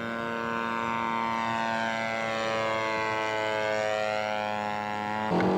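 Radio-controlled scale model airplane engine running steadily in a flyby, its upper tones sweeping down and back up as the plane passes. It grows louder near the end.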